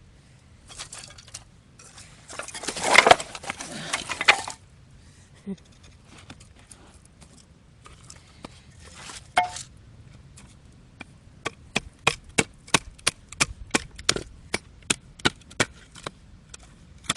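Firewood being split by hand: a loud splintering, rustling burst of wood about two seconds in, then, past the halfway mark, a steady run of sharp wooden knocks at about two to three a second.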